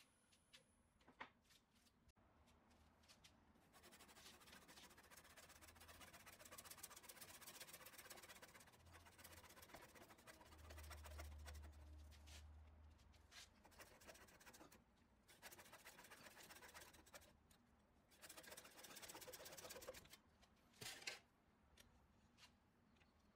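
Turning tool scraping and cutting ash wood on a lathe, in stretches of fine scratching with short pauses between them, and a faint low hum for a few seconds near the middle.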